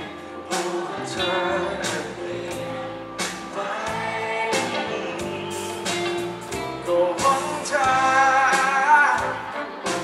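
Male singer performing a pop ballad live with a rock band: lead vocal over electric guitar, bass guitar and drums.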